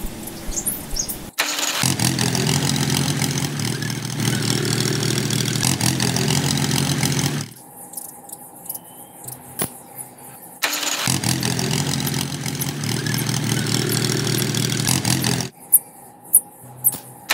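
A steady engine sound, of the kind used for a toy tractor, runs in two long spells of several seconds each, starting and stopping abruptly. Light clicks and taps fill the quieter gaps between them.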